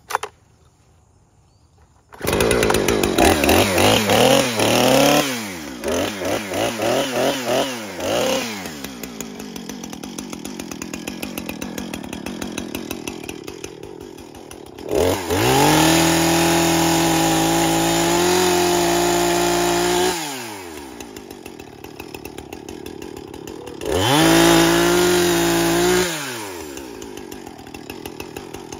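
Two-stroke gasoline chainsaw catching about two seconds in after a pull start, then revved up and down several times and settling to a ticking idle. It is twice held at high revs, for about five seconds and then about two, and drops back to idle after each.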